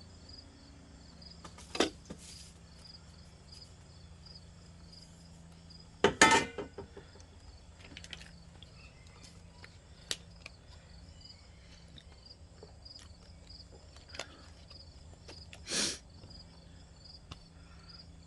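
Crickets chirping steadily in a fast, even pulse, with occasional sharp knocks and a brief clatter of things being handled, the loudest about six seconds in.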